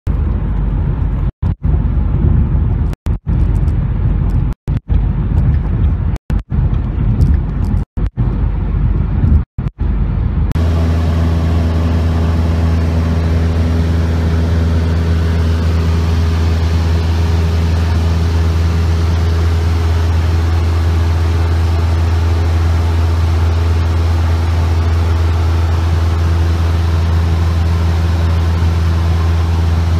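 For the first ten seconds, a car's road and engine noise at freeway speed, heard inside the cabin and broken by six brief dropouts. Then the Cessna 172's four-cylinder piston engine and propeller drone steadily in cruise, heard inside the cockpit.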